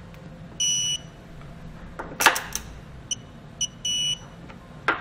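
High-pitched electronic beeping of a digital torque wrench as a bracket bolt is torqued to spec: one long beep under a second in, a sharp click about halfway, then two short beeps and a long beep near the end.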